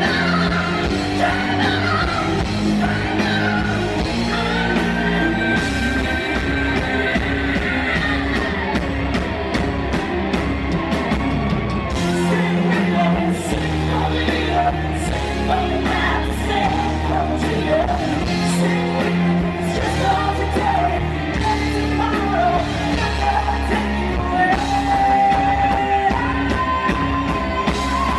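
Pop-rock music with a singer holding long notes over a steady bass and drum beat, with some shouting.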